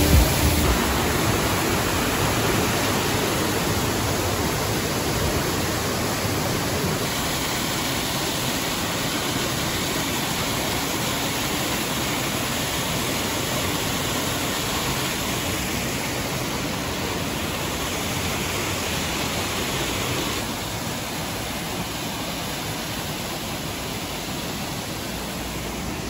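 Steady rush of a waterfall and its cascading stream: water falling about 15 m and churning in the plunge pool below. The level drops slightly about twenty seconds in.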